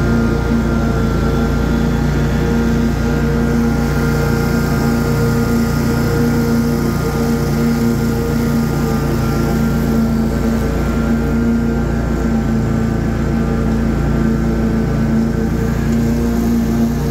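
Ride-on lawn mower engine running steadily while mowing: an even drone that holds one pitch throughout.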